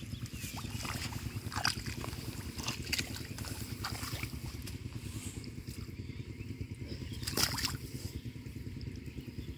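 A small engine running steadily, with water sloshing and a few short splashes. The loudest splash comes about seven and a half seconds in.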